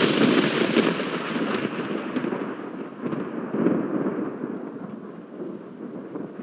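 A thunderclap that breaks suddenly and rolls on as a long crackling rumble, swelling twice and slowly dying away.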